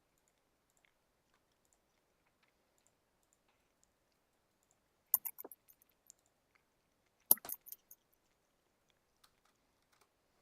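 Computer keyboard and mouse clicking: two short bursts of sharp clicks, about five seconds in and again two seconds later, over faint scattered ticks.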